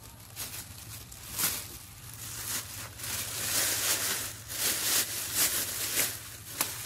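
Thin plastic bag crinkling and rustling as bunches of green bananas are packed into it, in irregular crackles that get busier after about three seconds.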